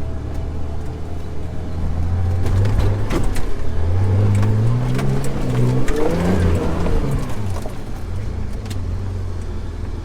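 Off-road vehicle's engine revving through mud, its pitch climbing from about four seconds in to a peak around six to seven seconds and then dropping back. A few sharp knocks about three seconds in.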